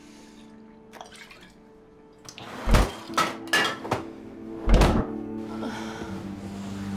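A freezer door and drawer thudding and clattering, a string of sharp knocks with a heavy thunk at the start and another about two seconds later, over a low steady music drone.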